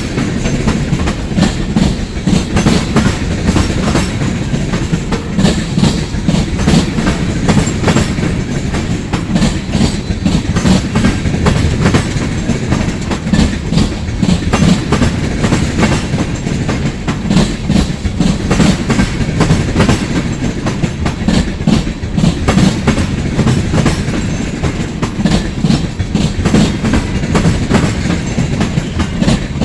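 Freight train cars rolling past at close range, steel wheels clacking rapidly over the rail joints with a steady rumble.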